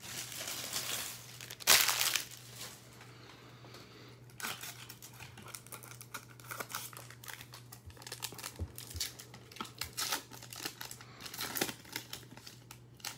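Foil trading-card pack wrappers crinkling and rustling as a pack is pulled from the box and torn open, with a louder rustle just under two seconds in and then a run of small crackles.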